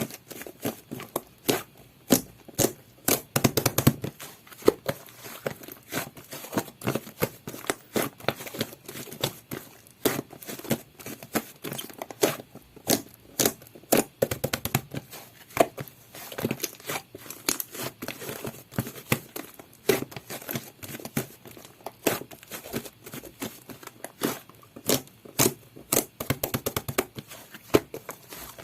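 Slime being squished, pressed and stretched by hand, giving a quick irregular run of sticky clicks and small pops.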